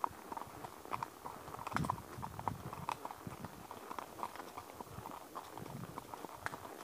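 Horse's hoofbeats on a forest path under a rider, a steady run of short clicks and knocks.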